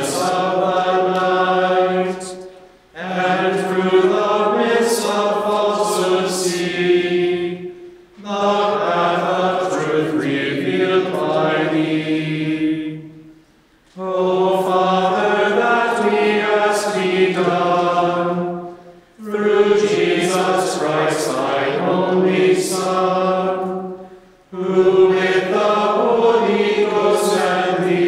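Gregorian chant sung by a group of voices in unaccompanied phrases of about five seconds each, with a short breath pause between phrases.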